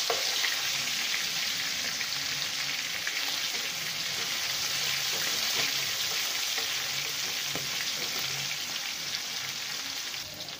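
Chicken breast sizzling steadily as it fries in hot oil in a wok, with faint ticks and scrapes of a metal spatula moving it in the pan. The sizzle eases a little near the end.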